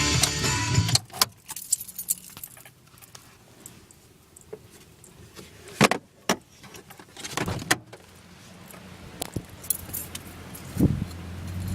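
Guitar music cutting off about a second in, followed by scattered sharp clicks and rattles with quiet stretches between them, the strongest about six seconds in and again around seven and a half seconds.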